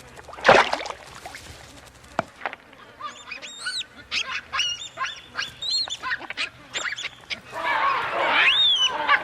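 Baboons screaming in alarm as a crocodile attacks: a run of short, high shrieks that rise and fall in pitch, several a second. A sudden loud crash comes about half a second in, and a noisy scuffle comes near the end.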